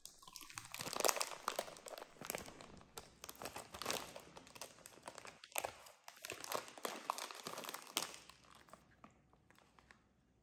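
Plastic instant-noodle packet crinkling and rustling in irregular bursts as a baby monkey handles and pulls at it, with some crunching. It goes quieter near the end.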